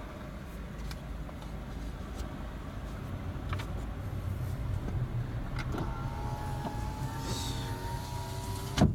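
Low, steady engine and road rumble heard inside a slowly moving car's cabin. About six seconds in, a steady whine starts and runs for about three seconds, then ends in a sharp thump just before the end.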